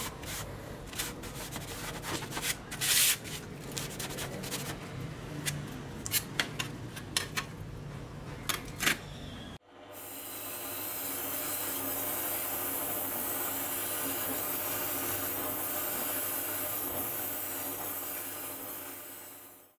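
A gloved hand scrubs a rust-covered circular saw blade in a metal tray: rubbing strokes with scattered sharp scrapes and clicks. About halfway through it cuts off suddenly. It gives way to the steady whine of a brass wire wheel spinning on a power tool's shaft, brushing rust off the saw's metal housing, which fades out near the end.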